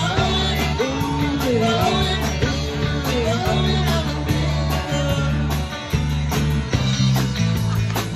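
Live rock band playing: electric guitars, bass guitar and drum kit, with a steady driving beat and gliding lead lines over the top.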